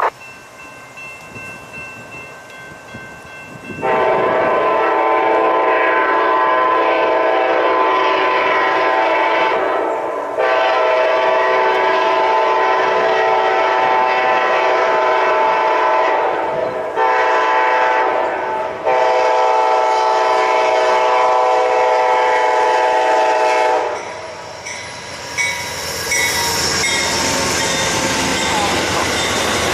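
Amtrak GE P42DC locomotive's air horn sounding a chord in four blasts, long, long, short, long: the grade-crossing signal. After the last blast the passenger cars rush past with wheels clattering over the rail joints.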